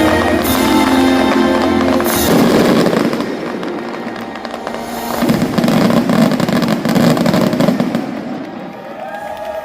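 Fireworks bursting and crackling, with music playing under them at the start. About halfway through comes a dense crackling barrage.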